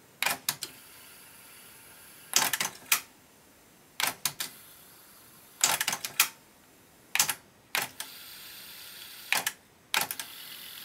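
Aiwa AD-F910 cassette deck's freshly re-belted tape transport clicking and clunking as it switches between play, fast-forward and rewind, about seven clusters of clicks a second or two apart. A steady whir of the mechanism and winding tape runs between them, which seems to run a little loud.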